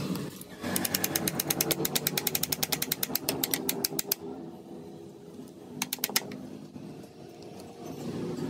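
Rapid mechanical clicking, about a dozen sharp clicks a second, for about three and a half seconds, then quieter with a short run of clicks about six seconds in.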